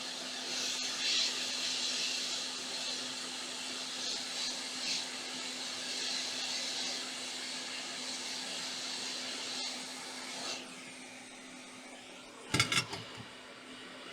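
Hot air rework station blowing steadily onto the laptop board, cutting off about ten seconds in. A short clatter of a few sharp knocks follows near the end.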